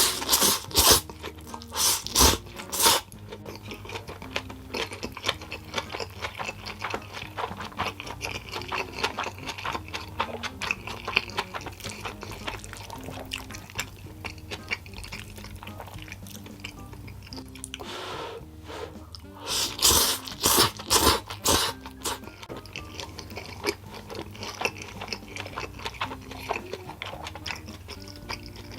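Food crackling in hot fat in a pan, a dense steady patter of small pops, with a few louder clattering hits at the start and again about twenty seconds in, over background music.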